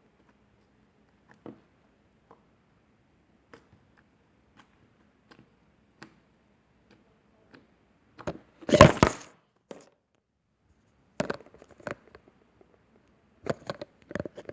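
Hands squishing and pressing slime, giving scattered small clicks and sharp crackling pops as air pockets burst. The loudest stretch is a dense crackle about nine seconds in, with more clusters of pops near the end.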